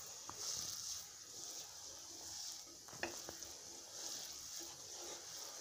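Wooden spatula stirring simmering soup in a wok while cornflour slurry thickens it: a faint hiss of steam and bubbling that swells with the strokes, and a few light taps of the spatula on the pan about three seconds in.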